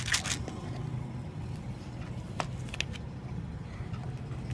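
A clear plastic jar handled and set down on a concrete floor: a quick cluster of sharp clicks at the start and two more single clicks near the middle, over a steady low hum.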